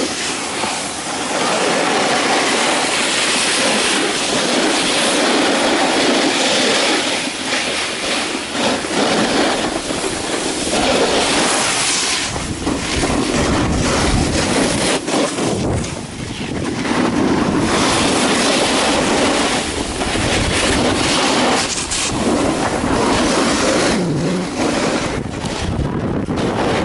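Loud, steady rushing and scraping of a snowboard run down packed snow: board edges sliding over the piste and wind on the microphone, dipping briefly a few times.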